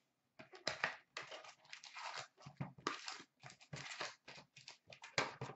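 Hockey card packaging being torn open and handled by hand: an irregular run of short tearing, crinkling and rustling sounds.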